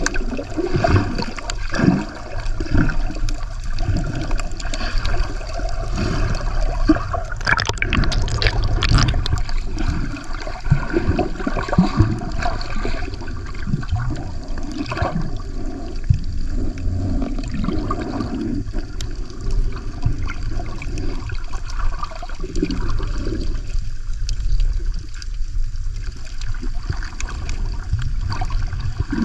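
Water sloshing and gurgling around a camera held underwater, with irregular dull thuds and bubbling throughout.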